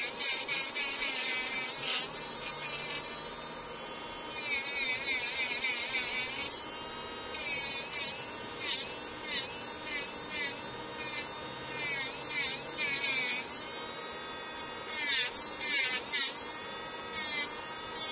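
Electric nail drill (e-file) running with a steady whine while its bit grinds on a nail, in repeated bursts of high, scratchy filing noise whenever the bit bears on the nail.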